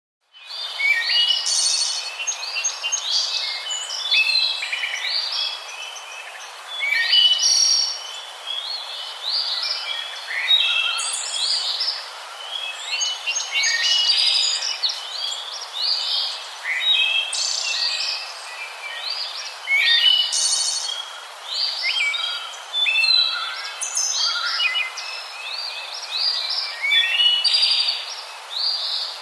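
Many small birds chirping and calling at once, a dense run of short overlapping chirps and whistled notes over a steady hiss, starting about half a second in.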